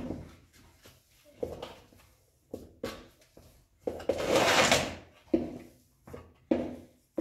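Bread dough being kneaded and folded by hand in a large aluminium basin: a string of short, irregular pushes and slaps, with one longer, louder noise about four seconds in.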